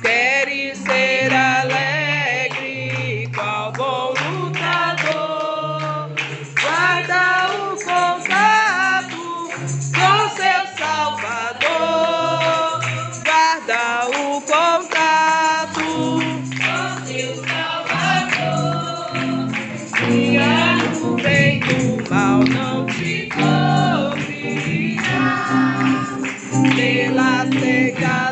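Christian worship song: voices singing over instrumental backing with sustained bass notes that change every second or two.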